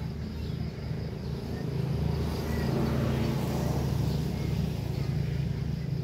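A low, steady engine hum, like a motor vehicle, that swells about two seconds in and eases near the end, over a steady high insect drone.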